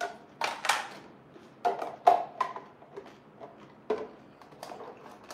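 Hard plastic food containers and slicer parts being handled and set down: a string of irregular clacks and knocks, the loudest about two seconds in.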